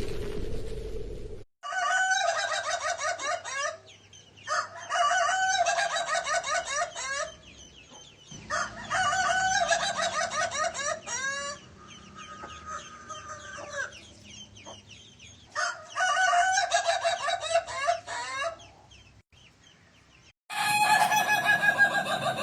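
Ayam ketawa (laughing chicken) rooster crowing its long, rapid staccato "laughing" crow. There are five crows a few seconds apart, each lasting two to three seconds, with a softer, steadier call between the third and fourth. The tail of background music plays in the first second or so.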